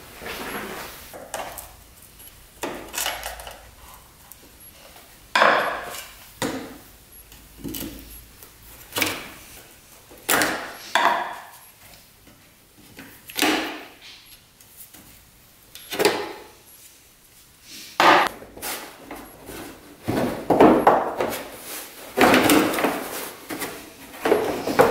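Knocks, clunks and rattles of a Polaris Sportsman 500 ATV's plastic body panels and parts being worked loose and handled. Sharp single knocks come every second or two, and the clattering gets denser near the end.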